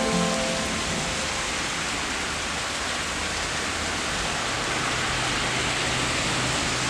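Steady rain falling, an even hiss with no distinct drops standing out. A few notes of music die away in the first half-second.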